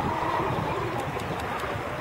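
Radio-controlled model racing boat running fast across the water: a distant high motor whine over a steady low rush of wind and water noise.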